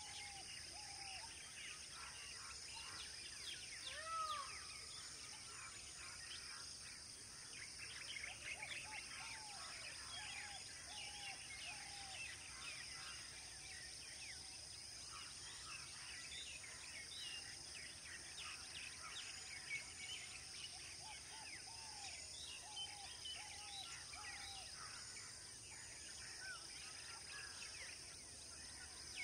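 Outdoor ambience of many birds chirping over a steady high insect drone. One bird repeats short arched whistled notes in runs of three or four, several times.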